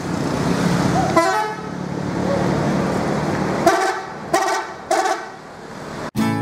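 A tour bus's engine running as it pulls out, then three short horn toots about four to five seconds in. Strummed guitar music cuts in right at the end.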